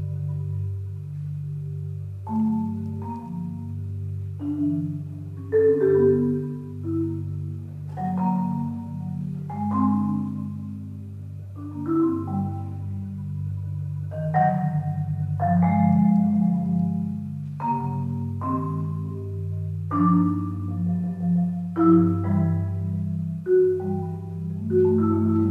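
Solo concert marimba played with mallets. A steady, sustained low roll holds underneath while single struck notes and chords ring out and fade above it, with a stronger accent about every two seconds.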